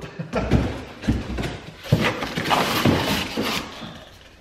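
Cardboard packing being handled: a shipping box and a cardboard insert scraping and rustling as they are pulled apart and lifted out, with several dull knocks and thuds.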